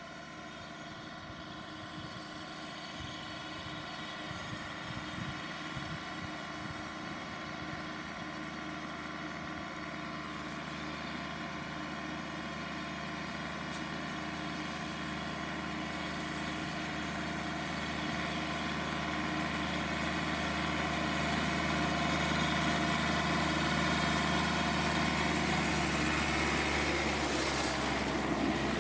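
Self-propelled slurry applicator's diesel engine running steadily with its filling arm docked to a feeder tank, gradually growing louder.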